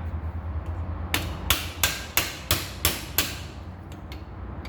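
Hammer striking metal seven times in quick succession, about three blows a second, each with a short ring. The blows are on the pressed-on lower bearing of a 1976 Corvette steering column, knocking it loose so that its balls drop out.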